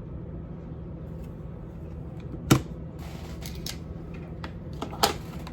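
Handling noises from a small plastic digital kitchen timer: a sharp click or tap about two and a half seconds in, a few faint ticks, and another click near the end, over a low steady background hum.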